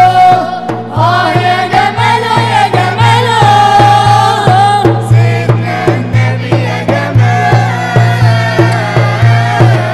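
A mixed group of men's and women's voices singing an Arabic nasheed in praise of the Prophet in chorus, long drawn-out sung lines without a break, over a steady low drum beat of about two to three strokes a second.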